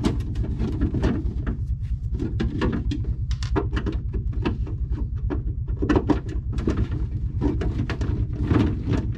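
Irregular clicks, knocks and rattles of the plastic parts of a refrigerator ice maker being handled and pulled apart, over a steady low hum.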